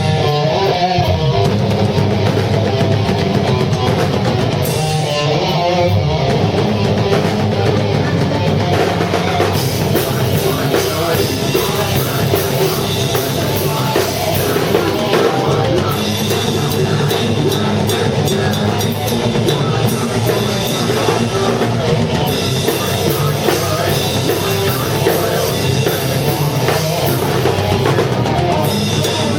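Live rock band playing loud, heavy rock: electric guitar over a full drum kit.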